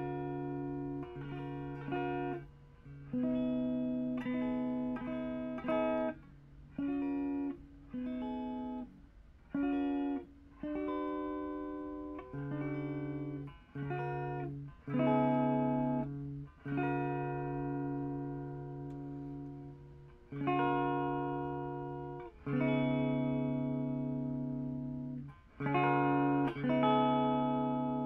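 Clean electric guitar from a 2012 Epiphone Les Paul Standard played through a Marshall Origin 20 head and a Harley Benton 2x12 cabinet: a series of chords and picked notes, each struck and left to ring and fade, many over a held low note, with short gaps between phrases.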